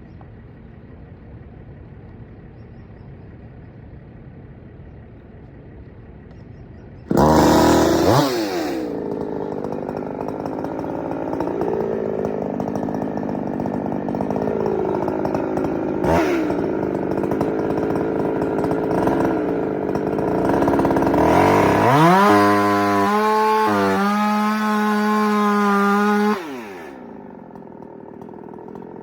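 Chainsaw idling, then throttled up at about seven seconds and cutting for roughly twenty seconds, its engine pitch sagging and recovering as the bar loads in the wood. This is a plunge cut into a eucalyptus trunk for felling without a face cut. Near the end the saw drops back to idle.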